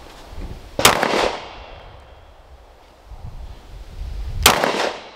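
Two 9mm pistol shots from a Glock 43X, about three and a half seconds apart, each a sharp crack with a short echo after it.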